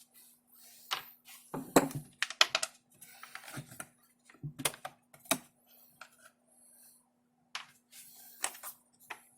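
Irregular light clicks and knocks of small metal and plastic chainsaw parts (cover, nuts, tools) being handled during disassembly.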